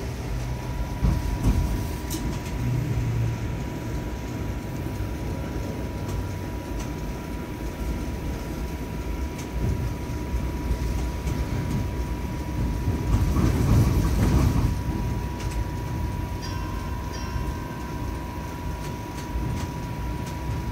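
Ride noise of a Toronto streetcar heard from inside the car: a steady low rumble of wheels on the rails with a thin steady whine over it, swelling louder about two-thirds of the way through as the streetcar arrives at the station.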